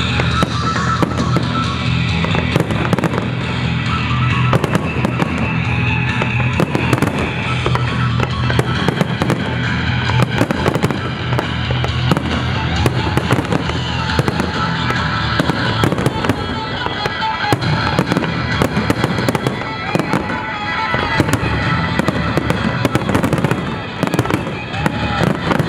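Aerial firework shells bursting in rapid, dense succession, many bangs overlapping, over music playing with the display.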